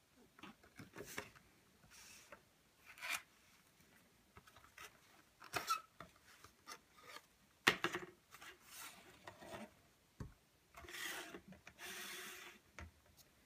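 Cardboard box being handled and opened by hand: scattered rustles, scrapes and taps, the sharpest a little past halfway, then two longer scraping rubs of cardboard near the end.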